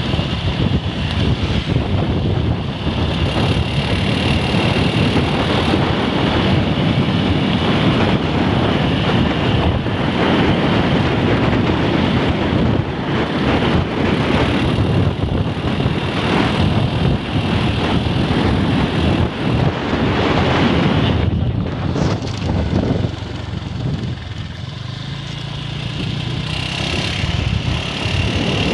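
A vehicle on the move: engine and road noise with wind buffeting the microphone. It eases off for a few seconds past the two-thirds mark, then builds again.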